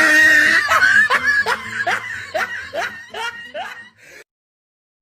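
A person's laugh: a held high note, then a run of short "ha" syllables that fade out and stop about four seconds in.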